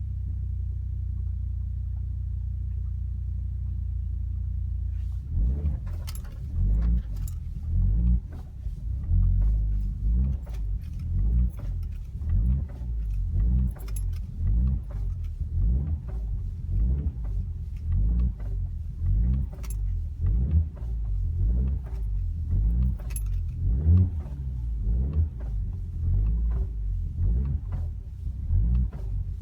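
A car's suspension knocking and rattling as it drives over uneven ground: irregular low thumps with sharp metallic clicks, several a second, over the steady low rumble of the car. The first five seconds or so hold only the rumble before the knocking sets in. The knocking is a fault noise from the suspension.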